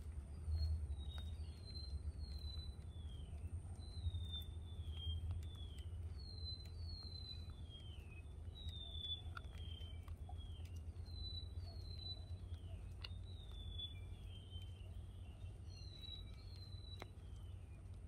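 A bird whistling a long series of clear notes, each sliding down in pitch, about two a second in loose groups, over a steady low rumble with a few faint ticks.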